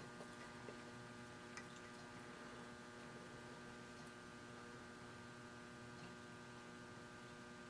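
Near silence: a faint steady electrical hum, with a few faint ticks.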